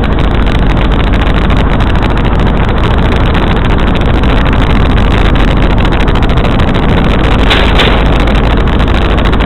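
Helicopter in flight: loud, steady engine and rotor noise mixed with wind on the microphone, with a short louder burst about seven and a half seconds in.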